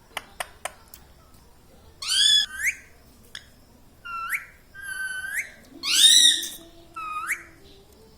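Pet parrot giving a series of short calls that rise in pitch at the end, about six of them with brief gaps between, after three sharp clicks in the first second.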